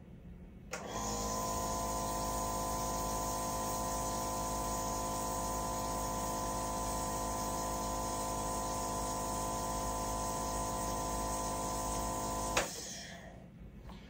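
Nebulizer running to deliver a citric-acid or saline fog through a face mask for a reflex cough test: a steady motor hum with several steady tones. It switches on about a second in and cuts off with a click near the end.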